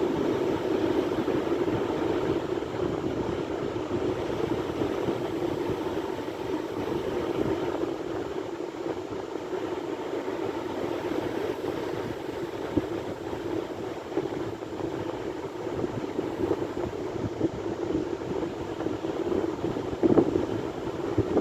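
Sea waves washing in a continuous rushing noise that slowly swells and eases, with a louder surge near the end.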